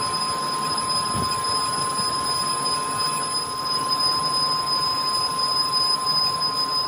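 Metal lathe running, turning a metal cylinder while the cutting tool takes a continuous cut, with a steady high-pitched whine over an even machine noise.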